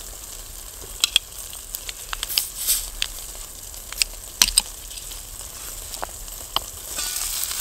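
A chapati frying in olive oil in a covered pan over a campfire, sizzling steadily. Scattered sharp clicks and knocks of a glass beer bottle being handled are heard, and the sizzling grows louder near the end.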